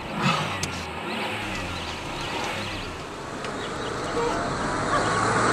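Small hatchback car's engine running as the car pulls away from the kerb, getting louder near the end.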